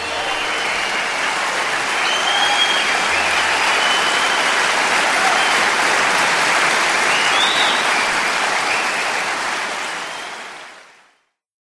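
Audience applauding steadily, with a few faint high calls over the clapping, then fading out over the last second or so.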